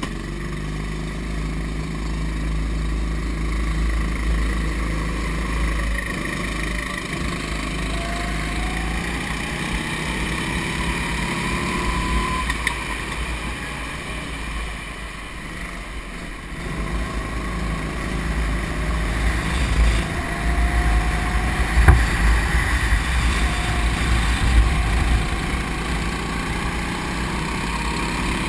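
Go-kart engine running hard under a close onboard microphone, its pitch rising over several seconds as the kart accelerates and dropping back, with wind buffeting the microphone and a short knock about two-thirds of the way through.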